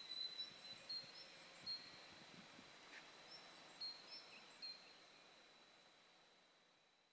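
Near silence: a few short, faint bird chirps over a faint steady high whine and background hiss, fading out toward the end.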